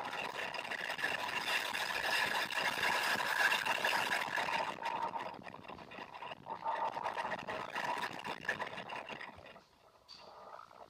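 Shelby Mustang's V8 engine running hard at high speed during a track lap, heard inside the cabin through an action camera's microphone. The recording is heavily clipped and 'really blown out'. The sound drops away sharply near the end as the throttle is lifted for braking.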